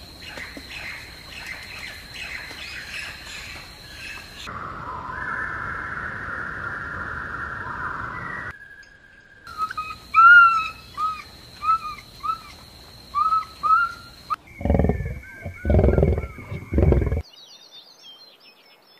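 A run of wild animal calls. After a stretch of hissing outdoor ambience comes a series of short chirping calls, then three loud, deep calls, and high bird song near the end.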